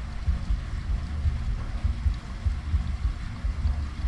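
Wind buffeting the microphone: an uneven low rumble with irregular thumps, over a faint steady hiss.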